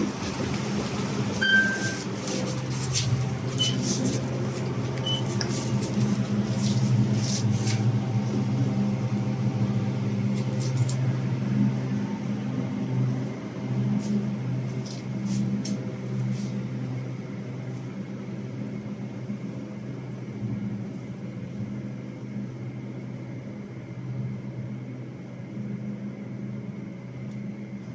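A lift cabin in motion: a steady low machine hum with a few clicks and knocks in the first several seconds.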